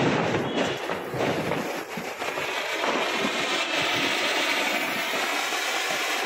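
Matka anar, a clay-pot fountain firework, burning with a steady hiss as it throws up a tall shower of sparks.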